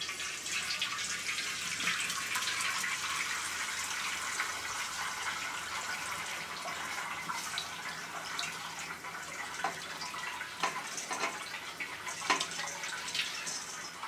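Liquid pouring in a thin stream from a metal bowl of wet grated coconut into a stainless-steel colander, a steady trickle and splash on the metal. A few soft plops near the end as clumps of grated coconut drop in.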